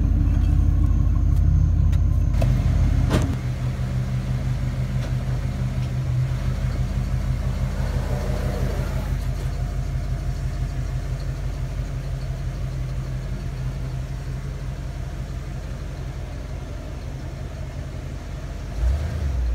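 Ford 5.0 L (302) V8 in a 1996 F-150 idling steadily while warming up just after an oil change. A couple of sharp knocks come between two and three seconds in, and the engine sound then drops a little in level.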